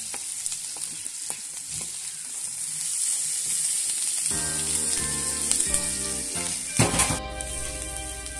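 Shallots, dried red chillies, curry leaves and garlic sizzling in hot oil in a steel kadai, stirred with a wooden spatula that knocks and scrapes against the pan, the loudest knocks near the end. Background music comes in about halfway through.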